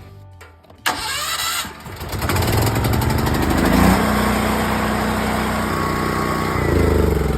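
Generac portable generator's small engine starting on its electric starter: a brief crank about a second in, then the engine catches and picks up speed, and runs steadily from a cold start with its automatic choke on.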